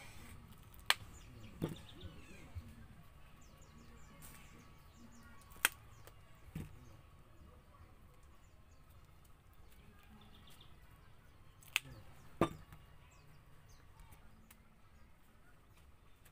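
Ears of corn being cut in two: six sharp cracks, coming in three pairs a few seconds apart.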